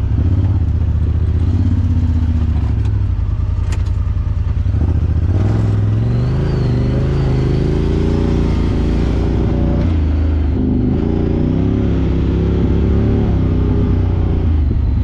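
Side-by-side UTV engine revving under load on a steep off-road hill climb. The revs rise about five seconds in, fall back near ten seconds, and climb again.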